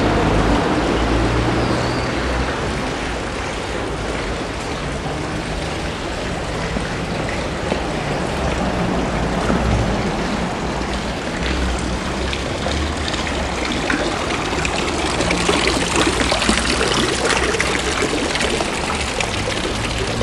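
Water running steadily from a stone courtyard fountain, a continuous splashing hiss over a low rumble, a little louder in the second half.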